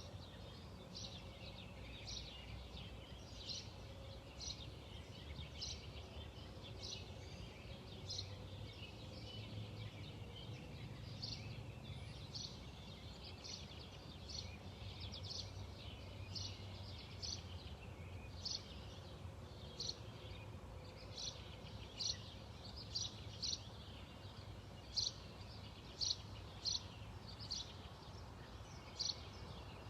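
Small birds chirping: short, high chirps repeated irregularly, coming thicker and louder in the second half. Under them runs a steady low background rumble.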